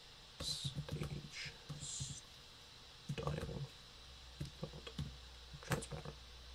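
Typing on a laptop keyboard: several quick runs of key clicks with short pauses between them.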